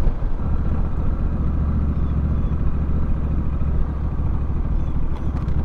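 Honda Rebel 1100's parallel-twin engine running steadily, heard from the moving bike with road and wind noise.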